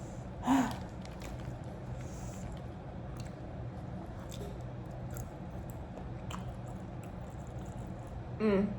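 A person chewing seafood boil, with small wet mouth clicks over a steady low background hum. A short vocal sound comes about half a second in and another near the end.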